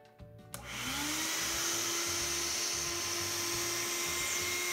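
Shop vacuum switched on about half a second in, its motor tone rising as it spins up, then running steadily with a rush of air as the hose sucks aluminum chips out of the milled slots.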